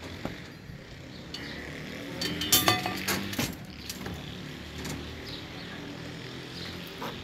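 Steel reinforcing bars clink together a few times with a short metallic ring, loudest a little over two seconds in. A steady low machine hum runs underneath.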